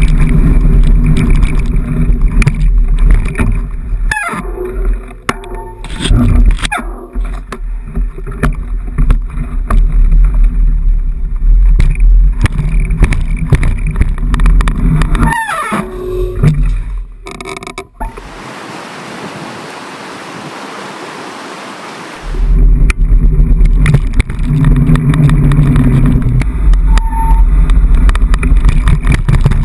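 Heavy, uneven wind and vibration rumble on a handlebar-mounted GoPro HD HERO2 as a mountain bike rides along rough park paths. A few short squeals come and go, and for about four seconds past the middle the rumble drops out, leaving a steady hiss.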